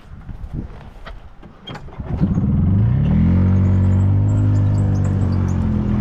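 Golf cart engine starting up about two seconds in, its pitch rising as the cart pulls away, then running at a steady low drone. A few light knocks and rattles come before it.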